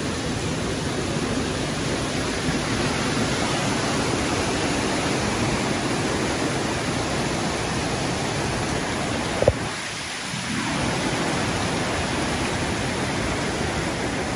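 Steady rushing of a swollen, fast-flowing muddy river in flood after heavy rain, with rain mixed in. A single sharp knock comes about nine and a half seconds in, followed by a brief dip in the noise.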